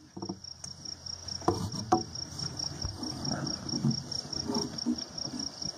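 A farrier working on a horse's front hoof: two sharp clicks about a second and a half and two seconds in, with scraping between, as the hard-packed hoof is cleaned and trimmed. Over it runs a steady, fast, high-pitched insect chirping.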